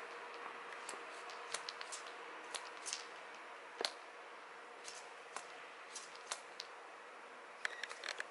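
Scattered light clicks and taps from a kitten's claws and a toy mouse on a string knocking on a wooden floor as the kitten paws and rolls with the toy. A cluster of clicks comes near the start, a single sharper click about halfway through, and another quick cluster near the end, over a faint steady hum.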